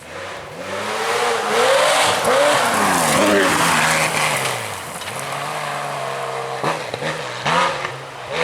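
Rally car engine being driven hard, revving up and falling back again and again through gear changes over a hiss of tyre and road noise. It settles into a steadier note for a moment, with two sharp cracks near the end.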